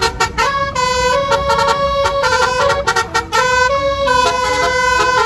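Indonesian telolet bus horn playing a tune: several horn notes sound together and change pitch in steps every half second or so, over a low rumble.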